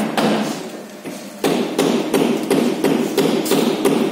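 Rapid, regular metallic knocking, about three strikes a second, over a steady machine hum, in a workshop where packaging machines are running.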